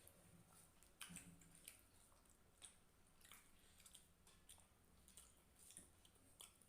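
Faint eating sounds: irregular soft, wet clicks and smacks of chewing a mouthful of rice and fish curry, with a slightly stronger smack about a second in.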